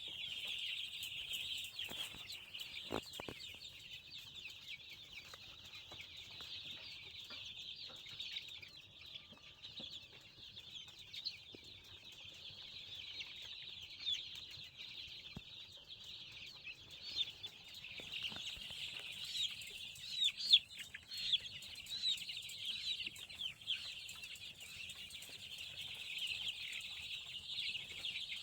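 A flock of five-week-old chicks peeping in a constant high-pitched chorus of many overlapping calls, with a few louder calls standing out about twenty seconds in.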